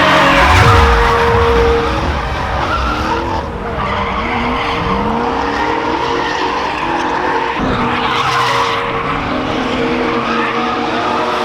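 Drift car engine revving up and down repeatedly as the tyres screech through a slide.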